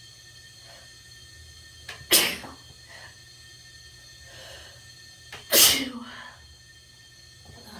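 A person sneezing twice, about three and a half seconds apart. Each sneeze is sudden and loud, with a short breath just before it.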